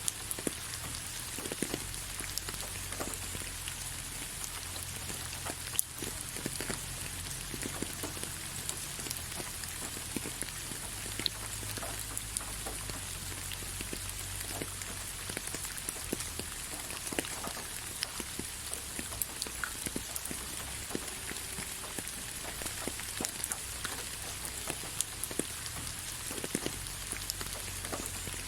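Gentle steady rain: a soft even hiss with many separate drops ticking sharply on a surface, over a faint low rumble.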